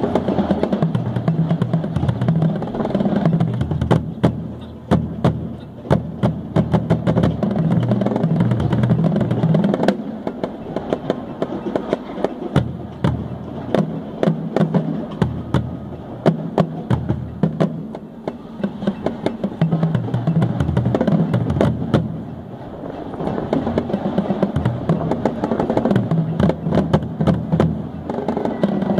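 A line of five pitched Dynasty marching bass drums played with mallets, the notes passed from drum to drum in split runs and unisons, with many sharp clicks among the drum strokes.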